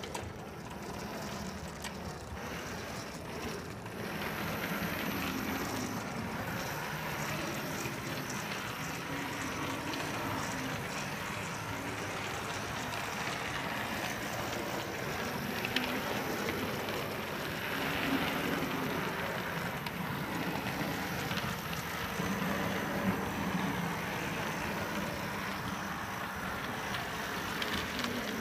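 Model camel-class steam locomotive and tender running along the layout track: the steady whir of its small electric motor and the rattle of its wheels on the rails, with a few small clicks.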